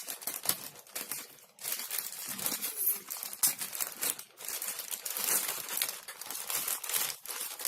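Packaging of a delivered parcel being crinkled and torn open by hand: a dense run of rustling, crackling crinkles, with a short lull about one and a half seconds in.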